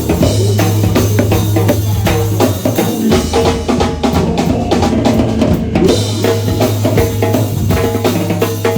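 A band playing, with a drum kit keeping a busy, steady beat of bass drum and snare over a long-held low bass note and other instruments.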